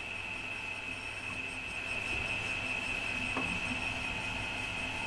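Magnetic-base tapping machine running: a steady high-pitched whine over a low motor hum.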